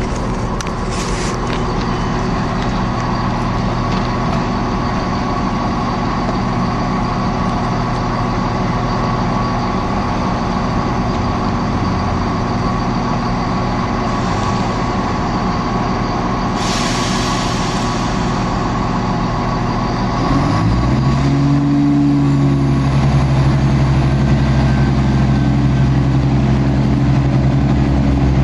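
Diesel multiple unit engine idling steadily at the platform, with a short hiss of air about 17 seconds in; about 20 seconds in the engine note rises and holds at a higher, louder steady pitch as the train powers up to pull away.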